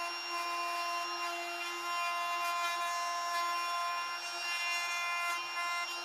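DeWalt 20V MAX XR cordless compact router running steadily, its bit cutting a hinge mortise in wood; a steady high whine.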